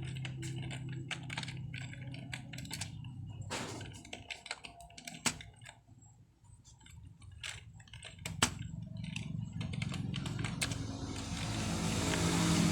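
Typing on a computer keyboard: irregular keystrokes clicking, sometimes in quick runs and sometimes a few at a time, over a low steady hum. Near the end a broad rushing noise swells up and covers the keys.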